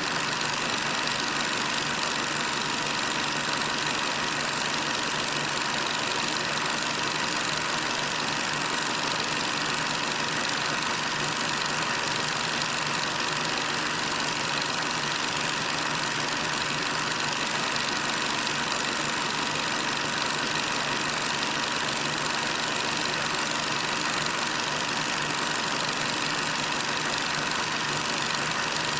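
Steady, unchanging engine drone of wheeled armoured cars driving past in a parade column, with an even hiss over it.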